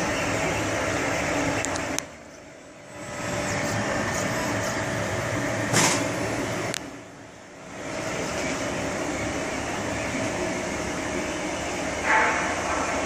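Filament 3D printer running a print: its motors and cooling fans make a steady whir with a constant hum, which drops away briefly twice. A sharp click about six seconds in.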